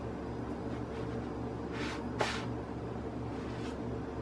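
Steady low hum, with a soft scrape about two seconds in as a tortilla is handled and lifted off a comal.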